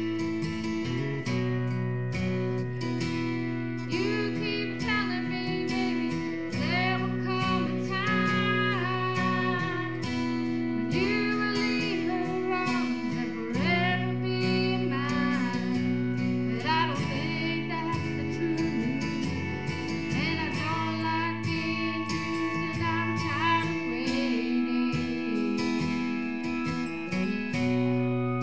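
Live music: a guitar playing steadily with a singer's voice coming in about four seconds in.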